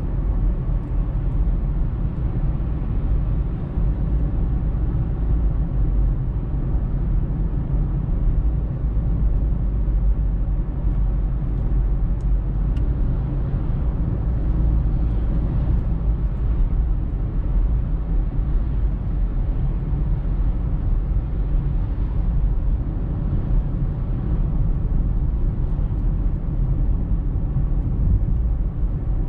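A car being driven: steady, deep road and engine noise.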